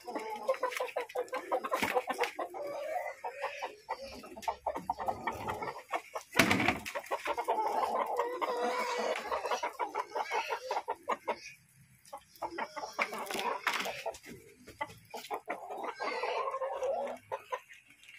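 Chickens clucking in a continuous chatter, with a short lull about twelve seconds in.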